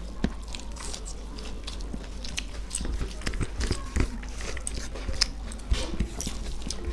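Eating sounds: people chewing a meal of rice and curries, with many irregular small sharp mouth clicks and smacks.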